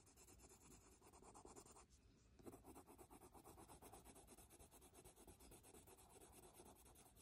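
Faint scratching of a Prismacolor Ultramarine coloured pencil shading back and forth on paper, with a brief pause about two seconds in. The pencil is blending over earlier layers of colour.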